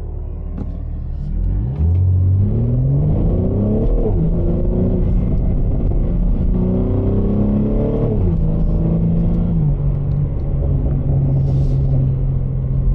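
BMW G80 M3's twin-turbo inline-six with an aftermarket exhaust, heard from inside the cabin. It idles, then pulls away from a stop, rising in pitch through the gears with two sharp drops at upshifts. It then settles to a steady cruise.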